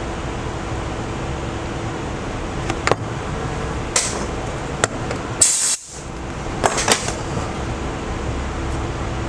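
A few light clicks and taps, plus a short hissing burst about halfway through, over a steady room hum and hiss.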